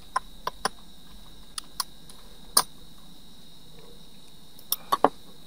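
Scattered computer keyboard keystrokes: a quick run of four taps at the start, a few single taps after, and three more near the end, over a faint steady high-pitched whine.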